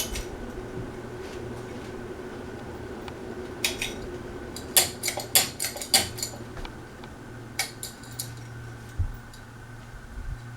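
Hampton Bay Maplewood ceiling fan running on medium with a steady motor hum, with a quick run of sharp light clinks around the middle and a couple more later.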